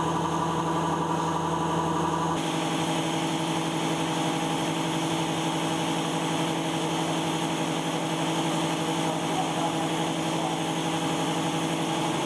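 Makino J3 machining center running while hobbing a spline on a crankshaft: a steady mechanical hum with a few held tones. It changes suddenly about two seconds in to a hissier running sound with less low rumble.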